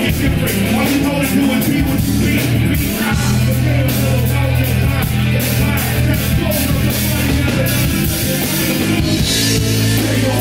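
A live rock band playing loudly: electric guitar, held bass notes and a drum kit with regular cymbal hits.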